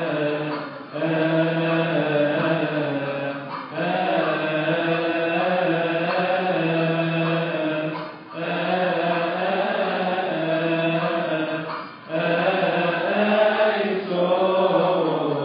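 A church congregation chanting a hymn together in unison, in long held phrases of a few seconds each with brief pauses for breath between them.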